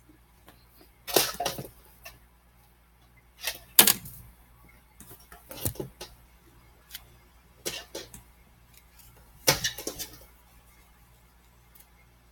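Handling noise as squishy toys are picked up and put down: about five short bursts of rustling and light knocks, with quiet between them.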